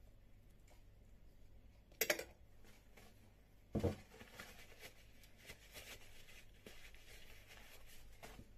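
Two sharp knocks, about two seconds in and again nearly two seconds later, then soft rustling of a paper napkin and small clicks as a Nutella-smeared fork is wiped clean.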